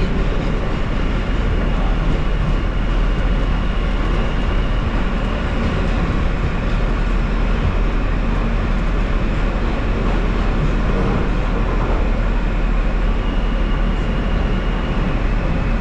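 New York City subway train running, heard from inside the car: a steady, loud rumble of wheels and running gear with a thin high whine over it.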